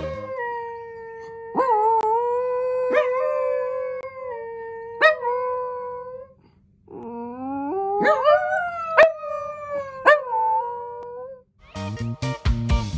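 A dachshund and a golden retriever howling together in long, held howls, with short sharp yips breaking in now and then. After a brief pause about six and a half seconds in, a new howl rises in pitch and holds. Background music with a beat comes in near the end.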